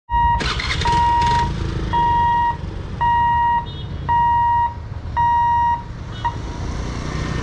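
Level-crossing warning buzzer beeping about once a second, each beep a steady high tone lasting about half a second, sounding while the boom barrier lifts to reopen the road; it stops a little after six seconds. Idling motorbike and car engines make a low rumble underneath.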